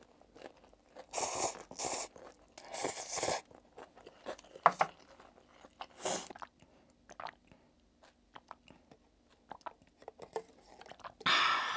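Close-up eating sounds from Buldak stir-fried noodles with fried gimmari: crunchy bites and slurps of noodles, two loud bursts in the first few seconds, then quieter chewing with small mouth clicks, and another slurp near the end.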